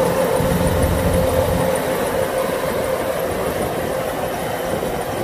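Kubota DC-105X rice combine harvester running as it cuts rice: a steady diesel engine drone with a constant whine. The deep rumble thins out after about two seconds and the sound grows slowly fainter as the machine moves away.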